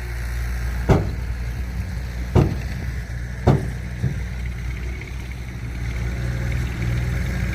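Heavy diesel engine of an earthmoving machine running steadily while it loads a dump truck, with three sharp clunks and a fainter fourth one in the first half.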